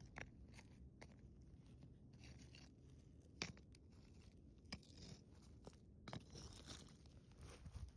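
Near silence with faint, scattered crunching and a few sharp clicks, the loudest about three and a half seconds in.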